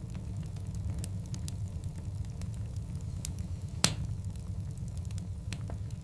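Wood fire of large burning logs: a steady low rumble with scattered small crackles, and one sharp, loud pop about four seconds in.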